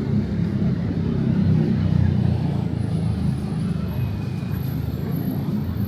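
Street traffic noise: a steady low engine rumble from a vehicle close by, with voices faintly in the background.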